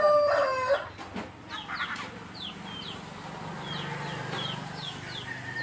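A rooster crowing, its crow ending under a second in, followed by small birds making quick, repeated falling chirps.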